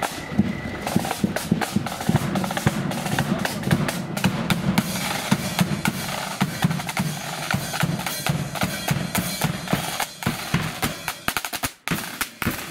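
Marching flute band's snare drums and bass drum playing a fast, dense parade beat, with a short break near the end before the drumming picks up again.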